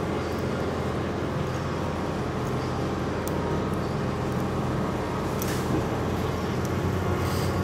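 A steady low machine hum, like a fan or blower running, with a few faint light ticks as a steel blade scrapes under an Apple Watch screen.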